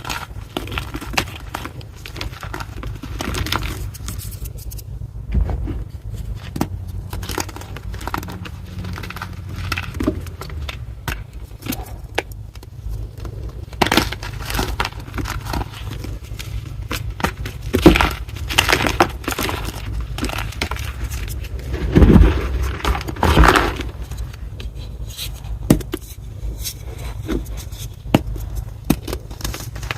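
A crunchy reformed gym chalk block being crushed, giving irregular crunches and crackles with a loud burst of crunching a little past the two-thirds mark.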